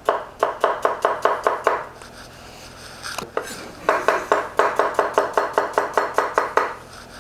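Chef's knife slicing radishes into matchsticks on a wooden cutting board: two runs of quick, even knife strokes of about six a second, with a pause of about two seconds between them.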